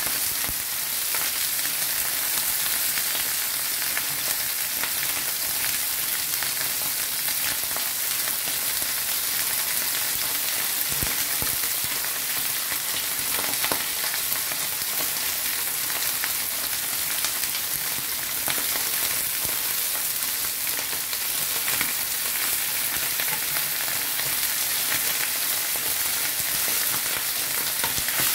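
Beltfish pieces shallow-frying in hot oil in a pan, a steady, even sizzle as they cook toward crispy.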